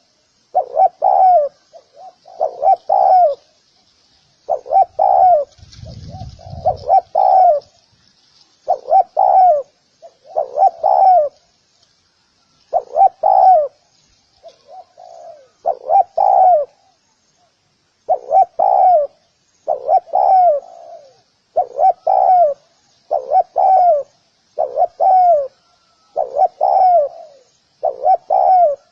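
Spotted dove cooing over and over, in phrases of two or three coo notes coming about every two seconds. A short low rumble comes about six seconds in.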